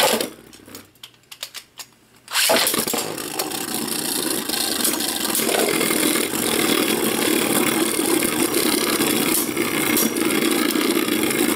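A few light clicks, then about two seconds in two Beyblade Burst tops, Obelisk Odin TX and Holy Horusid UC, land and spin in a plastic stadium with a steady, loud whirring rattle. There are occasional sharper knocks near the end as they clash.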